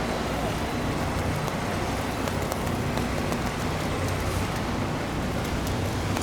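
Steady street traffic noise with a heavy vehicle engine running low; no siren sounds.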